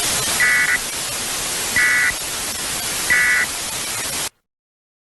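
TV static hiss with three short, high electronic data bursts about a second and a half apart, the Emergency Alert System end-of-message tones. The static cuts off suddenly about four seconds in.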